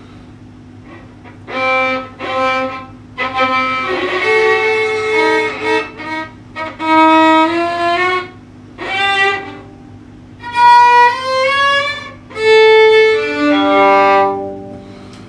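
Solo violin, bowed, playing a slow melody in short phrases with brief pauses between them, starting about a second and a half in; several notes slide upward in pitch. A faint steady hum runs underneath.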